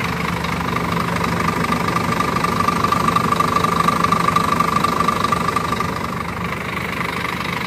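Scania K360 coach's rear-mounted five-cylinder diesel engine running as the coach drives off, growing a little louder midway and then easing off as it moves away.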